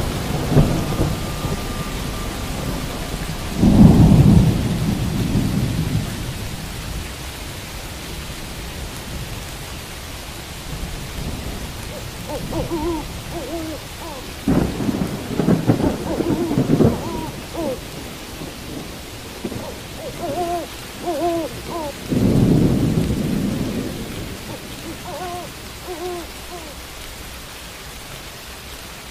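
Steady rain with thunder rumbling three times, loudest about four seconds in and again around halfway and near the end. Between the rumbles come small groups of short, low, pitched hoot-like calls.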